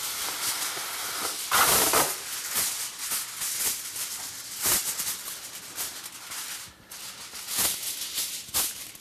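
Sheet of aluminium foil rustling and crinkling as it is pulled off the roll, torn from the box and folded and smoothed flat on a stone counter. The loudest crackle comes about a second and a half in, with sharp crinkles near the middle and the end.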